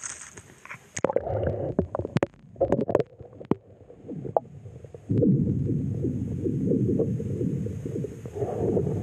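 Muffled water noise through a submerged camera under the ice: sharp knocks and clicks over a low rumble in the first few seconds, then a steady low rumble from about halfway through.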